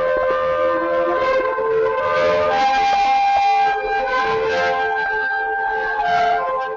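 Several shofars blown together, long overlapping blasts at different pitches.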